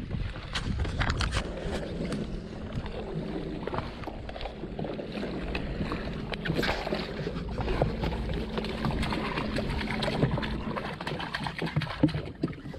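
Jet ski engine idling low under water sloshing and splashing against the hull, with scattered sharp knocks and clatter as the rope is handled.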